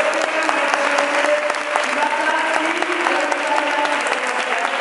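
Audience applauding, a dense, steady round of hand-claps.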